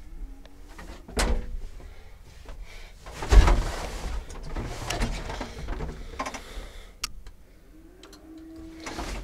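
Cab door and fittings of a John Deere 1030 tractor being handled with the engine off: a sharp click about a second in, a heavy clunk of the door about three and a half seconds in, then knocks and rattles, and a short squeak near the end.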